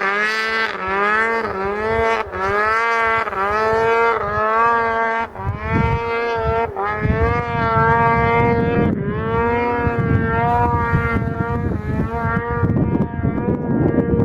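Polaris IQ-R 800 race snowmobile's two-stroke twin, fitted with an HPS silencer, revved in quick repeated blips about once a second. From about seven seconds in it holds a steadier, higher pitch with a rough low rumble underneath.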